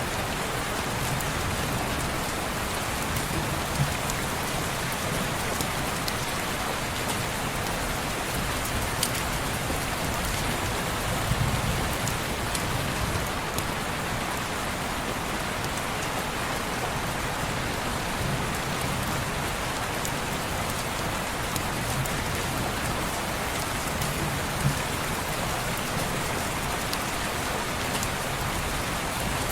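Steady rain falling on window glass, an even hiss with scattered sharp ticks of drops.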